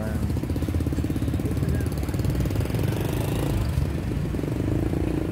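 A vehicle engine running steadily, with a rapid, even pulsing.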